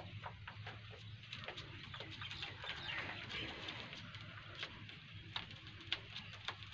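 Faint background bird calls, short chirps scattered throughout, over a low steady hum, with a few sharper clicks near the end.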